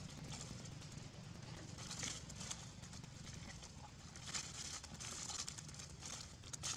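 Dry fallen leaves rustling and crackling in irregular short bursts as macaques move and forage on the leaf-strewn ground, over a steady low background hum.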